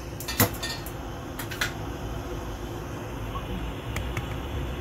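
Light kitchenware clatter: one sharp clink about half a second in and two lighter clicks a second later, over a steady low hum.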